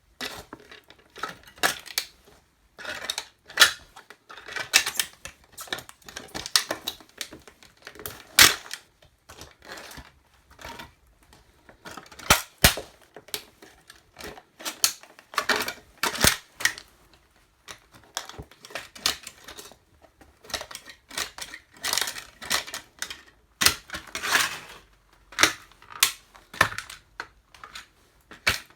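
Plastic toy truck cracking and crunching under boots: a long, irregular run of snaps and crackles, with a few sharper, louder cracks.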